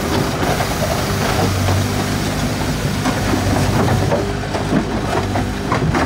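A lorry carrying a tracked mini excavator on its bed, driving along a road: a steady engine hum and road noise with many small clatters and rattles from the bed and the chained-down machine.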